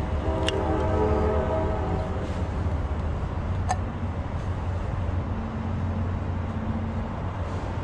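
Steady low rumble of a vehicle engine running, with a sustained chord of several tones, like a distant horn, that fades out about two seconds in. Two faint clicks sound, about half a second in and near the middle.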